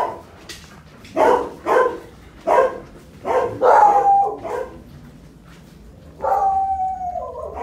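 A dog barking, about seven short barks in quick succession, then one long drawn-out cry about six seconds in that falls in pitch as it ends.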